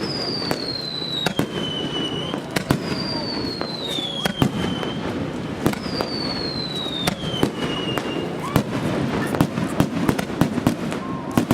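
Fireworks display with many sharp bangs that come thicker and faster in the second half. A whistle falling in pitch recurs every two to three seconds.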